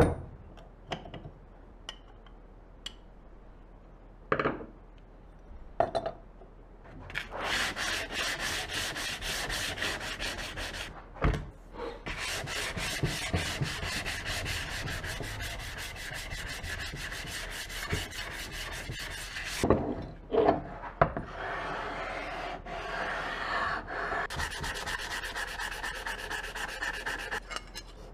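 Metal parts of an old hand plane knock and clack as it is handled and taken apart on a wooden bench. Between the knocks come long runs of rapid back-and-forth scraping and rubbing as the rusty parts are cleaned and the plane iron is worked on an oiled sharpening stone.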